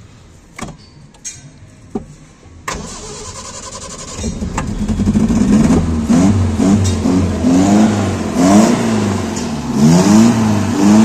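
Premier Padmini's four-cylinder petrol engine, with a freshly installed carburettor kit, started: a couple of clicks, then the starter cranks about two and a half seconds in and the engine catches. It is then revved up and down repeatedly.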